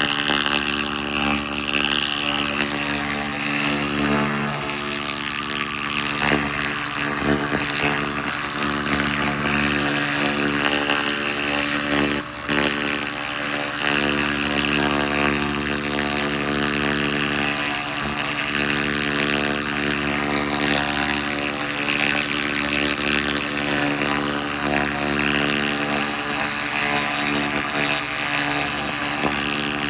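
SFX 2000 laser rust remover running: a steady drone with an even hum and a continuous high hiss of the laser working. There is a brief break about twelve seconds in.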